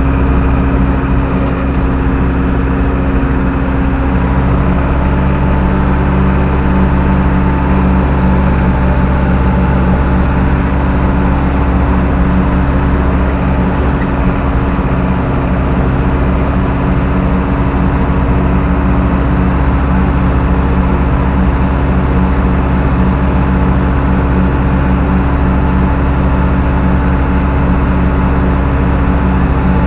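Zetor 6745 tractor's four-cylinder diesel engine running steadily at an even speed, with no change in pitch.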